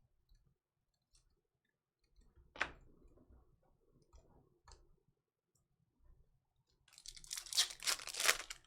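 A few scattered clicks and taps of cards being handled. About seven seconds in comes a second and a half of crinkling and tearing: a foil trading-card pack being ripped open.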